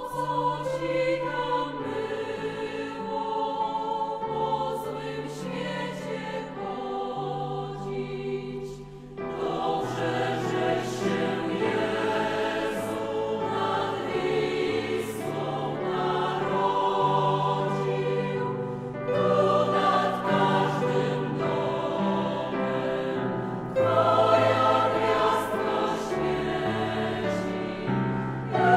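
Choir singing to instrumental accompaniment over a held bass line, breaking off briefly about nine seconds in and then going on.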